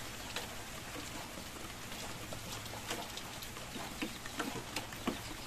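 Live freshwater prawns and crabs stirring in an aluminium basin, faint irregular clicks and taps from their tails and legs against the metal, over a steady background hiss.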